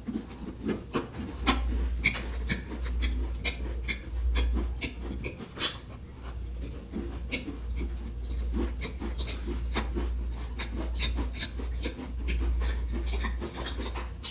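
Close-miked chewing of a crunchy chocolate chip cookie: many sharp, irregular crunches, with a low rumble underneath that comes and goes.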